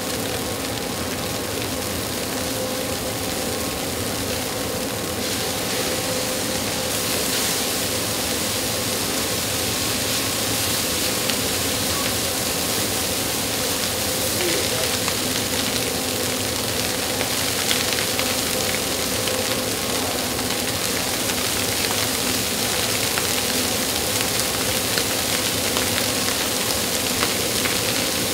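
Large IH industrial fried-rice stirring machine running with a steady motor hum, and a continuous hiss of rice frying in the heated drum that grows louder about five to seven seconds in.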